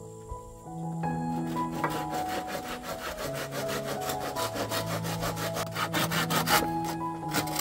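Wood being sawn by hand in quick, regular strokes that stop near the end, over background music with a steady melody.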